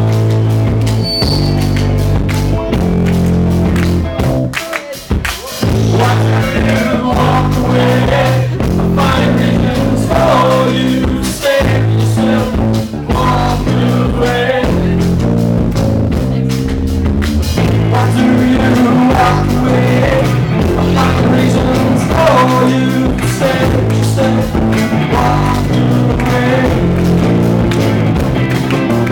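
Live rock band playing: bass guitar, electric guitar and drum kit, with a male singer. The music drops briefly about five seconds in, then carries on.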